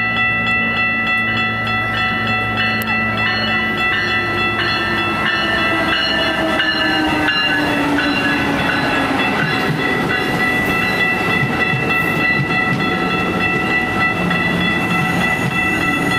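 Amtrak Siemens Charger diesel-electric locomotive passing close by, its engine drone dropping in pitch as it goes past. It is followed by the steady rumble and wheel clatter of the passenger cars rolling by.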